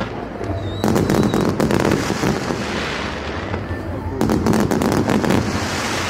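Aerial fireworks bursting with dense, continuous crackling. Fresh volleys come in about a second in and again about four seconds in.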